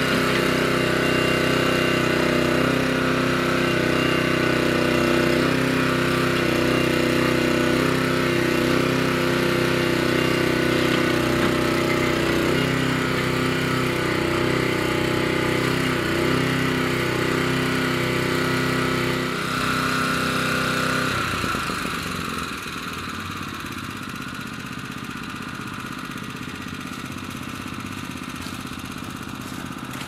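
Small engine of a homemade CAD Digger 728 mini backhoe running steadily, its pitch dipping a few times midway, then cutting out about two-thirds of the way through, leaving a quieter steady background.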